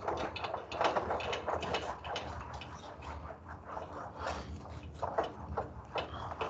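Whiteboard eraser rubbing across a dry-erase whiteboard in quick, repeated back-and-forth strokes, wiping off marker writing.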